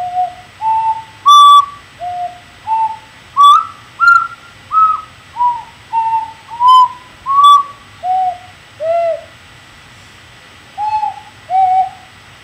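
Ocarina played slowly, one pure, breathy note after another in a simple tune within about an octave, with a short pause before the last two notes.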